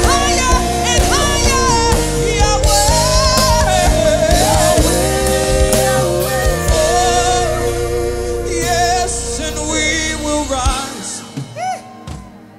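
Live gospel worship music: several voices singing with vibrato over a full band with bass and drums. Near the end the band drops away and the singing goes on more quietly, with short sliding vocal runs.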